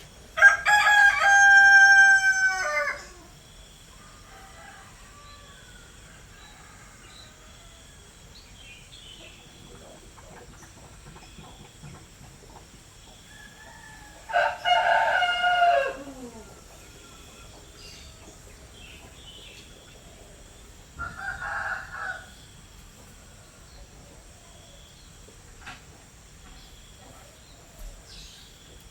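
Rooster crowing: two long cock-a-doodle-doos, the first about half a second in and the second about fourteen seconds in, each falling away at the end, followed by a shorter, quieter call about twenty-one seconds in.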